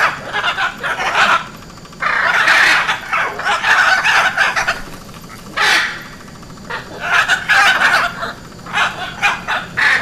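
Hyacinth macaw squawking: harsh calls in quick runs of several, with short pauses between the runs.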